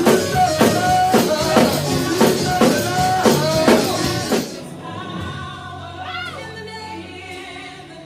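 Live gospel worship music: a band with drums keeping a steady beat under singing. About four and a half seconds in, the drums drop out and the music carries on softer with held notes and a voice.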